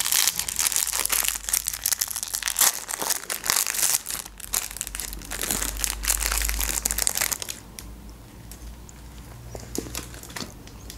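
Crinkly plastic wrapper of a dessert being handled and torn open, a dense crackling for about seven seconds that then drops away to a few faint clicks.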